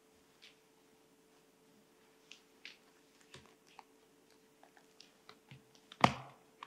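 Faint small clicks and paper rustles as papers are handled at a lectern, picked up by its microphone, with one louder knock about six seconds in. A faint steady hum lies underneath.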